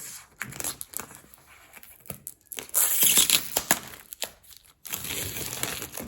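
Packaging being torn open and crinkled by hand, with rustles and small clicks; the loudest stretch of tearing comes about halfway through.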